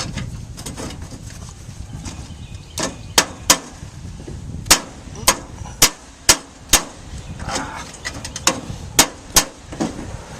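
Hammer driving nails into metal chimney flashing: about a dozen sharp single blows in short irregular runs, starting about three seconds in.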